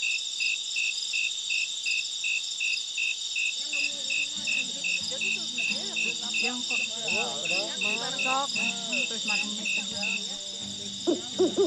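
Night chorus of crickets and other insects: a steady high-pitched shrill, with one cricket chirping about three times a second until near the end. From about four seconds in, an acoustic guitar is played quietly beneath it.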